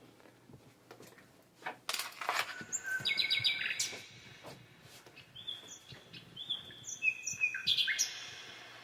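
Bird-like chirps and whistles played through a speaker by the Sound of Soul heartbeat-to-sound device after its music setting is switched: short tones, some flat and some dropping in pitch, starting about two and a half seconds in after a few clicks and rustles.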